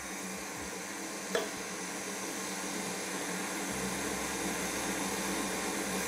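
Stand mixer running at low speed, its wire whisk beating egg whites in a stainless steel bowl while sugar is added gradually. It is a steady hum with one light knock about a second and a half in.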